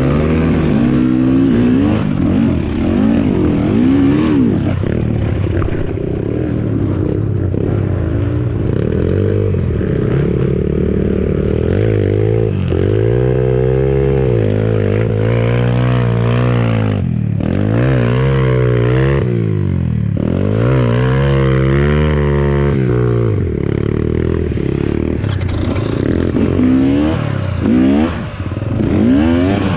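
Enduro dirt bike engine being ridden hard, its pitch rising and falling again and again as the throttle is opened and closed.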